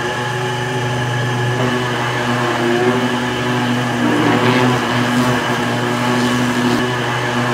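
Belt-driven roller machine for shaving and stretching sheepskins, running with a steady hum as a pelt is fed under its spinning roller.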